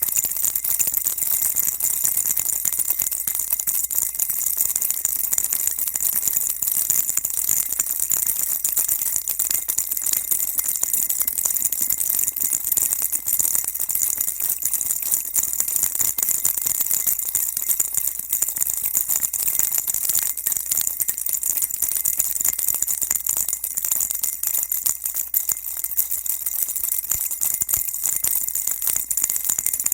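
Baby rattle shaken without a break, a dense, continuous high-pitched jingling of many small beads or bells.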